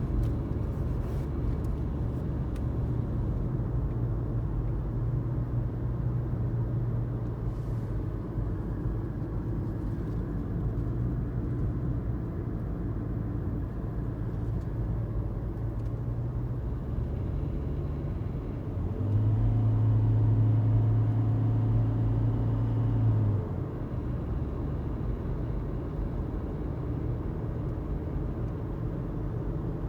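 Car engine and road noise heard from inside the cabin, a steady low drone while driving uphill. About two-thirds of the way through, the engine's hum swells louder for about four seconds, then settles back.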